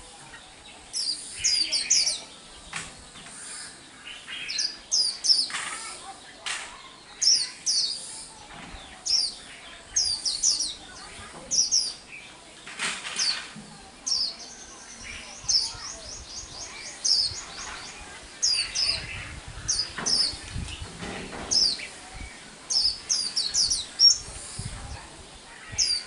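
A young white-eye singing: quick phrases of sharp, high chirps and whistles repeated every second or so, with a fast, even trill about halfway through. A few soft knocks sound in between.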